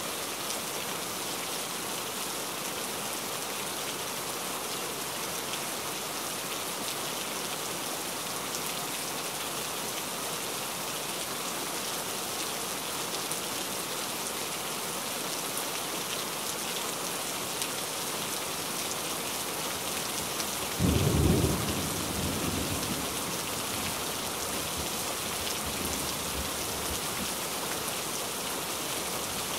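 Heavy rain falling steadily in an even hiss. About two-thirds of the way through, a sudden loud clap of thunder breaks in and rumbles off over a few seconds.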